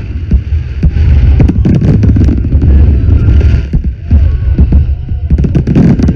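Fireworks going off: a dense, irregular string of sharp bangs and crackles over a heavy low rumble, very loud throughout.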